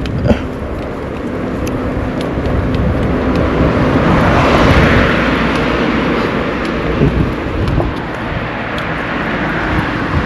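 A vehicle passing on the road, its engine and tyre noise swelling to a peak about halfway through and then fading, over a steady low traffic rumble.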